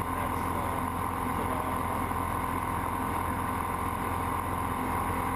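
Single-engine light aircraft's piston engine and propeller running steadily, an even drone heard from inside the cockpit.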